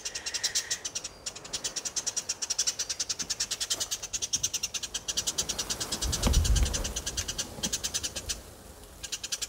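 New Holland honeyeater giving its alarm call, a rapid chatter of sharp notes at about nine a second that stops near the end. About six seconds in, a low thud and scrape as a compost aerator is pulled up through the compost.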